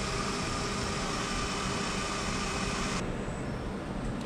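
ProtoTRAK CNC milling machine running a program on an aluminium block: a steady machine hiss with faint steady tones. The higher part of the noise cuts off suddenly about three seconds in, leaving a lower steady machine sound.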